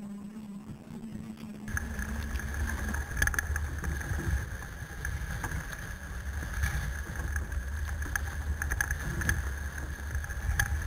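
Electric mobility scooter driving through tall grass and weeds: its motor's steady whine under a low rumble, with plants crackling and brushing against the scooter. About two seconds in the sound changes abruptly and grows louder, the whine now higher.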